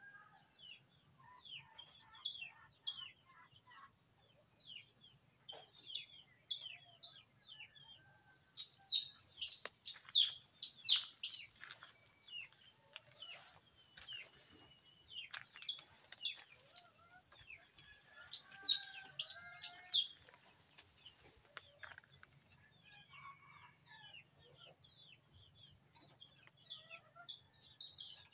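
Backyard birds chirping in many short, falling chirps, loudest in a busy run about ten seconds in, with chickens clucking now and then. A steady high insect buzz runs underneath.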